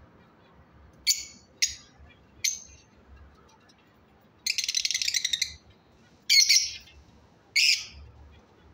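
Lovebirds calling: three short, shrill chirps early on, a rapid chattering burst about halfway through, then two louder calls near the end.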